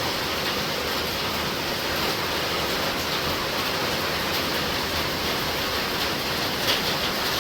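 Heavy rain pouring down steadily, an even, unbroken hiss of a downpour.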